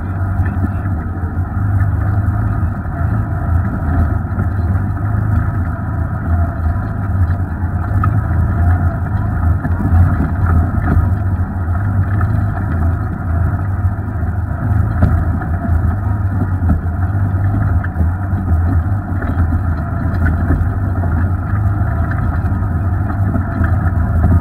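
Off-road vehicle engine running at low speed, a steady low drone, as the vehicle crawls over a rocky dirt trail, with faint scattered knocks from the tires and body over stones.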